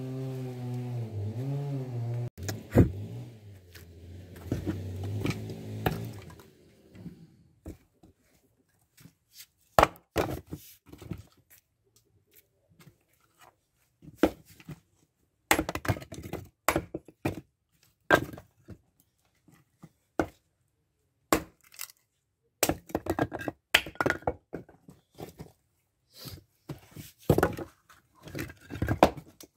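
Fiskars X17 splitting axe striking firewood rounds on a chopping block, a series of sharp cracks as the wood splits. Split pieces clatter onto the block and the pile between strikes.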